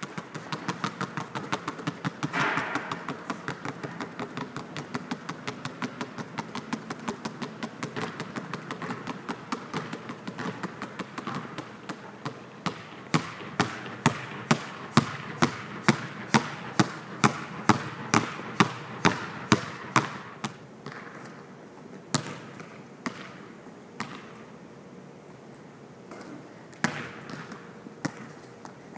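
Basketball dribbled on an indoor court floor: a fast run of bounces, then a stretch of harder bounces about two a second, then only a few scattered bounces near the end.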